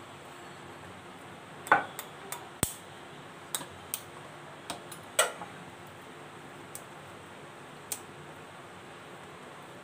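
Crockery being moved about on the worktop: about a dozen short clicks and knocks of bowls against the board and each other, the two loudest near the start and the middle, over a steady low hiss.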